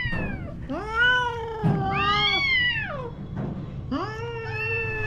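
Mother cat yowling in long, drawn-out calls that rise and fall in pitch, one after another: a defensive threat at a puppy that comes close to her kittens.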